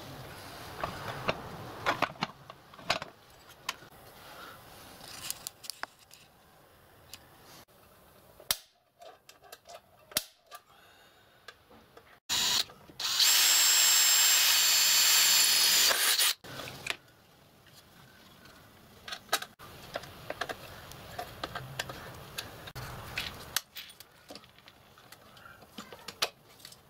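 Cordless drill running for about three seconds, about halfway through, after a brief blip of the trigger. Around it are scattered clicks and knocks of tools and parts being handled.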